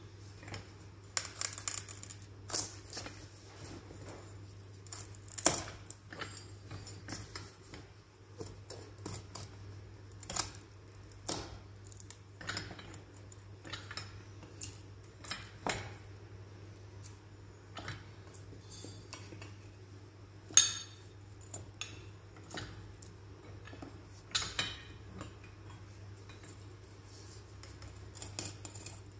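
A stock knife, its hooked end pivoting in an eye bolt, making repeated slicing cuts down into a block of dry, seasoned ash. It gives a series of sharp cracks and clicks at uneven intervals, one standing out loudest about two-thirds of the way through.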